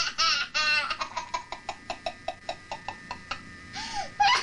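A young child laughing: a high giggle first, then a long run of quick, even "ha-ha-ha" pulses, about six a second, ending in a short hum.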